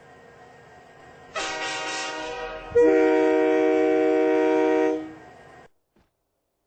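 A faint steady engine hum, then a loud horn. A first blast comes about a second and a half in, then a louder chord of several tones sounding together is held for about two seconds and fades out.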